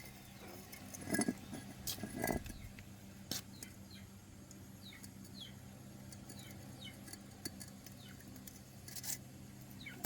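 Scattered light metallic clinks and knocks of diesel engine parts and hand tools being handled, a handful of separate strikes, with faint short high chirps in between.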